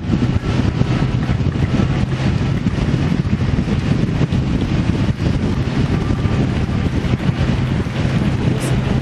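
A vehicle engine running steadily on the move, under heavy wind rushing over the microphone.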